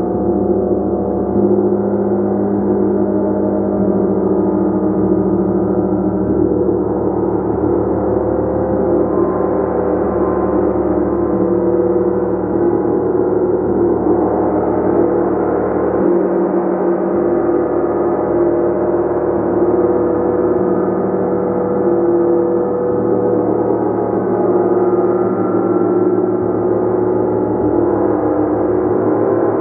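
Gong played continuously, its many overtones sustained and blending into a steady, dense wash of sound.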